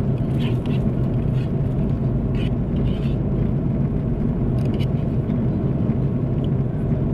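Steady low roar of an Airbus A330-300 cabin at cruise, jet engine and airflow noise heard from a window seat over the wing, with faint short clicks now and then during mild turbulence.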